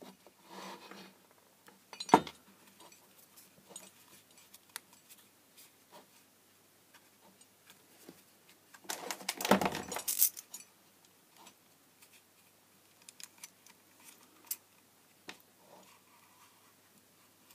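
Handling noise from pulling a floodlight's heat-shrink-wrapped driver and its wires out of the housing: scattered small clicks and clinks, a sharp knock about two seconds in, and a louder rustle about nine seconds in.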